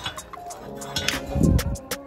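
Wrought-iron stand clicking and tapping against a ceramic tile countertop as it is set in place, with a low thump about a second and a half in. Soft background music plays underneath.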